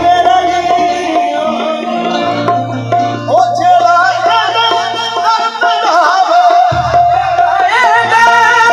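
Qawwali music: a singer's winding vocal line over tabla drumming and a steady held melodic tone.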